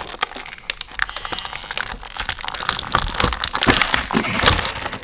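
Stiff plastic packaging tray crinkling and clicking in irregular crackles and taps as a small accessory is worked loose from it.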